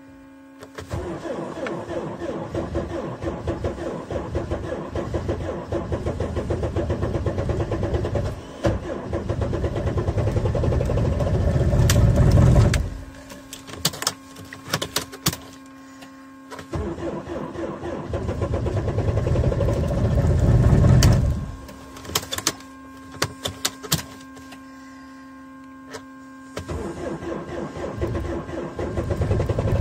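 2005 Mercedes Vito's OM646 four-cylinder common-rail diesel being cranked by the starter at about −28 °C on an old, weak battery. There are three long cranking attempts, each growing louder before it stops, with clicks in the pauses between them.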